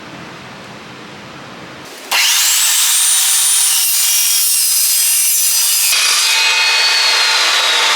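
Evolution S355MCS metal-cutting chop saw with a 14-inch blade cutting through steel tubing: it comes in suddenly and loud about two seconds in with a rising high whine, and the whine slowly falls in pitch over the last couple of seconds.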